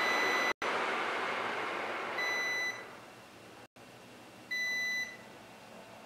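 Sharp wall-mounted air conditioner's indoor unit beeping three times, a short steady electronic tone each time, about two seconds apart, as it takes each press of the remote's stop button. Pressing stop three times brings the unit to a complete stop. A steady hiss under the first two beeps fades away about three seconds in.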